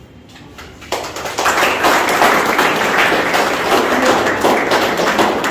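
A group of people clapping, starting suddenly about a second in and carrying on steadily.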